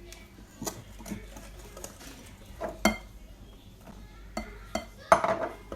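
A kitchen utensil clinking and scraping against a mixing bowl in scattered knocks while batter is mixed. The loudest knock comes about three seconds in, and a louder cluster comes near the end. Flour is being worked into an egg and sugar mixture.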